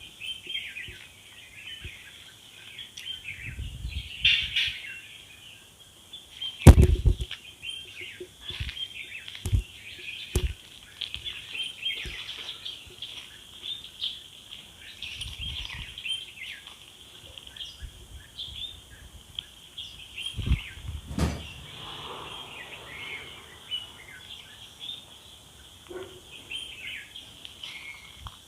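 Birds chirping and calling continuously in many short notes, with a handful of dull thumps scattered through it, the loudest about a quarter of the way in.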